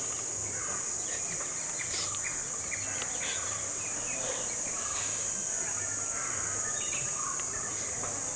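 Steady high-pitched drone of insects, with scattered short bird chirps.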